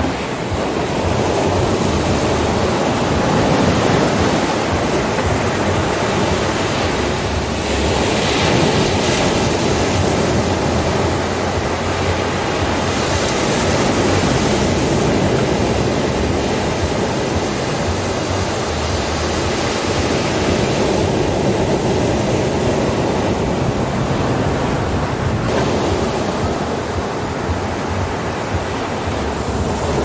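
Ocean surf: waves breaking and washing up a sandy beach, a continuous rushing noise that swells and eases every few seconds.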